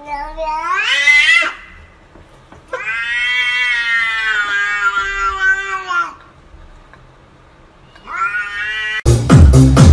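Domestic cats meowing in three long drawn-out calls: the first rises in pitch, the second holds for about three seconds, the third is shorter. Dance music with a steady beat cuts in near the end.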